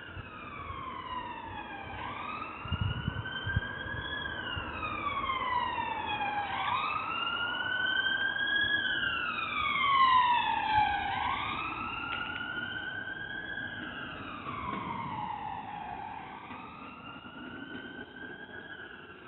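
Emergency vehicle siren wailing, its pitch rising then falling about every two seconds; it grows louder toward the middle and fades away as the vehicle passes.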